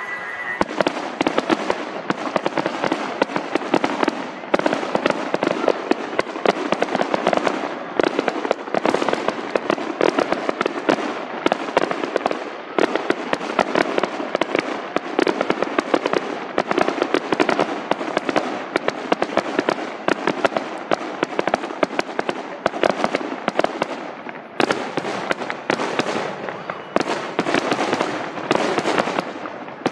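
Aerial fireworks display: a dense, unbroken barrage of shell bursts and crackling reports, with a few brief lulls.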